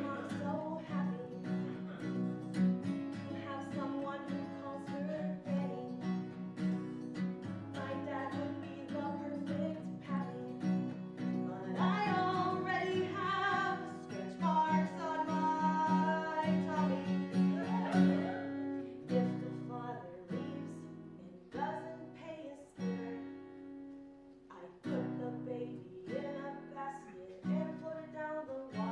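Music: an acoustic guitar playing chords, with a voice singing over it in places.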